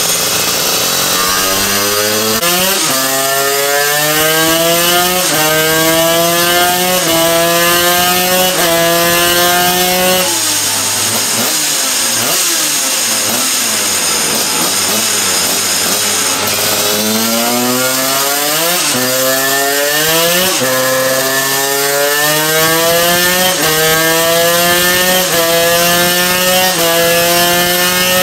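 Division 1 superkart's 250cc twin-cylinder two-stroke engine at full power on a rolling-road dyno. It revs up through the gears in rising steps, each cut short by a sudden drop in pitch at the upshift. About ten seconds in, the engine comes off the throttle and the revs fall away; a second run up through the gears starts at about 16 seconds.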